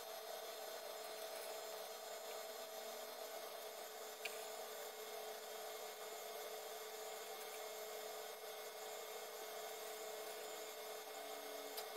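Faint steady room hum with a few steady tones in it, broken by a light click about four seconds in and another near the end.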